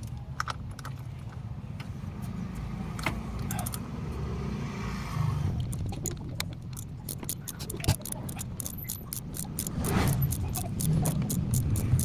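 Socket ratchet wrench clicking in quick, even strokes as 8 mm bolts are undone, after a few scattered metal clinks of tools. A low steady rumble runs underneath.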